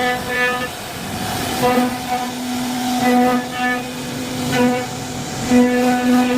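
CNC router spindle whining at a steady pitch while the bit carves wood, with cutting noise underneath. The whine swells and dips every second or so.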